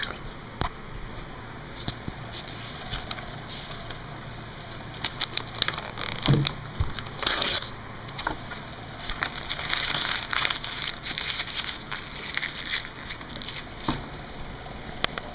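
A sheet of lined notebook paper crumpled and handled by hand close to the microphone: irregular crackling and rustling, with a longer rustle about seven seconds in.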